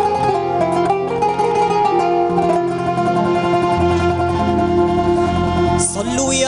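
Instrumental interlude of an Algerian religious-song ensemble between sung verses: plucked string instruments play a melody over a held bass line. A short bright hiss comes in about six seconds in as the next section starts.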